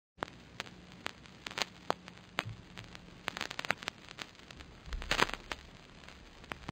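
Surface-noise crackle: sparse sharp pops and clicks over a faint steady hiss and low hum, with a denser cluster of crackles about five seconds in.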